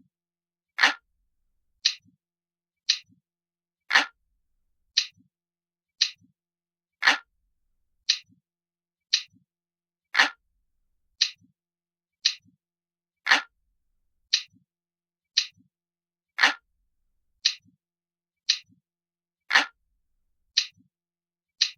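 Clock ticking steadily about once a second, with every third tick louder and fuller. This is a looped ticking-clock sound effect that mimics an analog clock.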